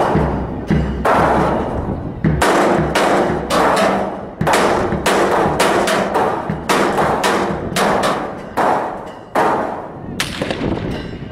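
Gunfire: an irregular string of sharp shots, about one or two a second, each trailing off in a long echo.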